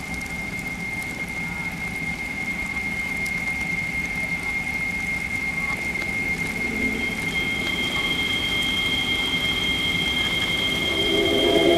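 Ambient soundtrack of a steady rain-like hiss that slowly swells, with a steady high whistling tone throughout. A second, higher tone joins about seven seconds in, and organ-like chords begin to rise near the end.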